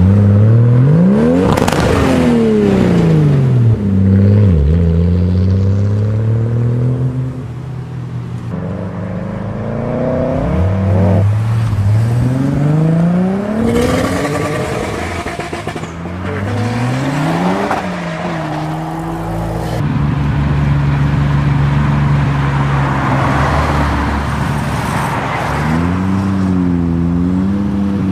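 Toyota MK4 Supra's straight-six engine revving and accelerating hard, its pitch climbing several times and dropping back at each gear change. Later it holds a steadier note, then blips the throttle in quick revs near the end.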